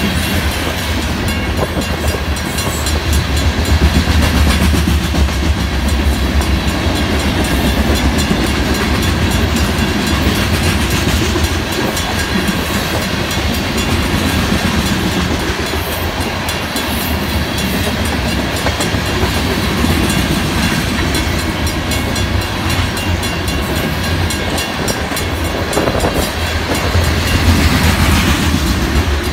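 A freight train of covered grain hopper cars rolling past at a grade crossing, its wheels rumbling and clacking over the rail joints. Over it, the crossing's Federal Signal mechanical bell rings steadily while the gates are down.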